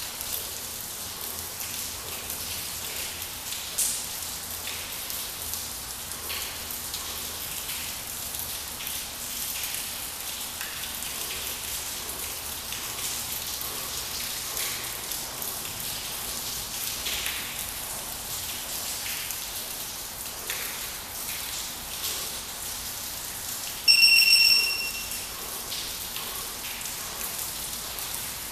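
Steady rain falling and pattering on the ground, with scattered faint taps. Near the end comes a single loud, high electronic beep lasting under a second.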